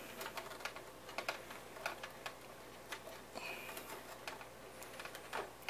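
Faint, scattered small clicks and taps as hands fit a Dremel wheel into the tail drive belt loop at the end of a model helicopter's tail boom.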